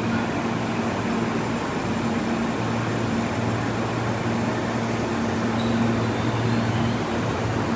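Steady hum of a Tobu 50090 series electric train's air conditioning and onboard electrical equipment, with two low tones over an even noise.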